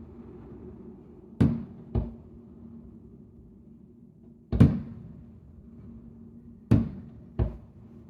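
Fireworks booming: five sharp bangs a second or more apart, the loudest about halfway through, over a low steady hum.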